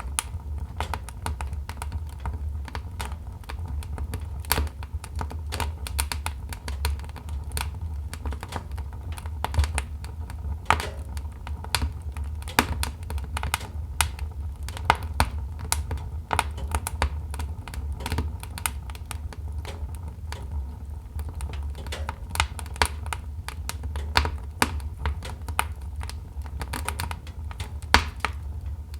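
Wood fire in a fireplace crackling: many sharp irregular pops and snaps from the burning logs over a steady low rumble.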